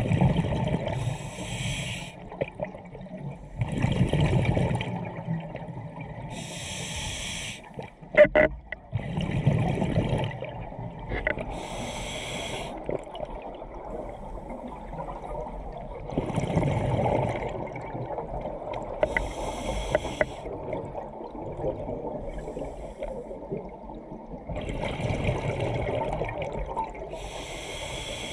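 Scuba diver breathing through a regulator underwater: a hiss on each inhalation alternating with a rumble of exhaled bubbles, a breath every few seconds.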